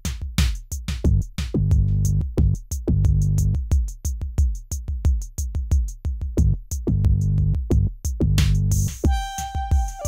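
Electronic background music: a drum-machine beat of deep kick drums with high hi-hat ticks, and low synth chords in a few stretches. A held higher note comes in near the end.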